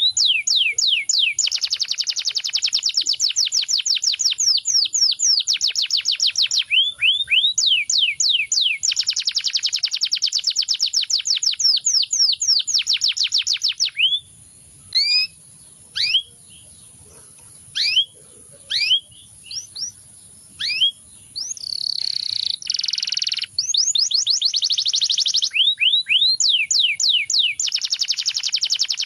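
Domestic canary singing: long runs of fast trills made of quick down-sweeping notes. About halfway through, the trills break into several seconds of scattered single chirps, then resume.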